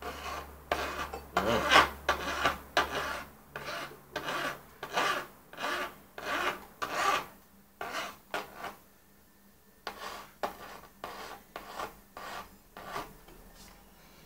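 Single-cut hand file rasping along the sharp edge of a 2010 MacBook Pro's aluminium unibody casing in short strokes, about two a second, with a pause of about a second a little past halfway. The edge is being filed down to soften it.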